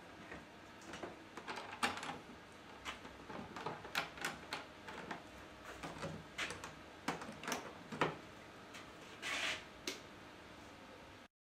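Aluminium UV exposure box being shut up by hand: irregular metal clicks and clunks as the lid and its front latches are handled, with a short scraping sound near the end.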